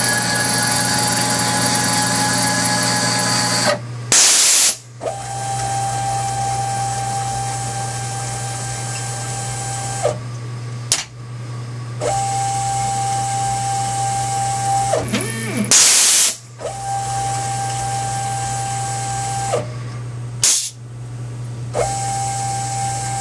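CNC-converted X2 mini milling machine with an automatic tool changer running its program unattended: a steady motor hum and whine, broken by three short, loud hisses about 4, 16 and 20 seconds in. After each hiss a higher steady whine starts up again, and the carousel changes tools between cuts.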